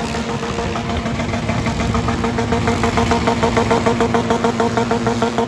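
Demolition derby cars' four-cylinder engines running, with a fast rhythmic pulsing that grows louder about halfway through.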